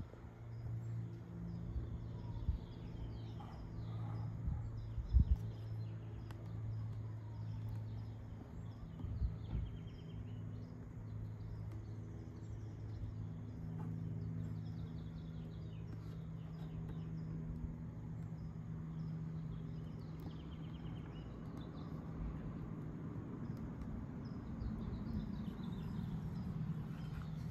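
Outdoor ambience: small birds chirping faintly over a steady low hum, with a couple of brief bumps from the camera being handled.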